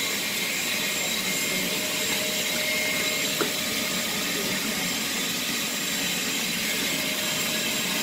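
Vacuum cleaner running steadily, its hose sucking at the car's interior, a constant rushing with a steady whine over it. A single light knock comes about three and a half seconds in.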